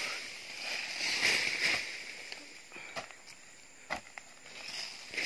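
A shovel digging into soft earth, scraping and tossing soil aside. There are two sharp clicks about three and four seconds in.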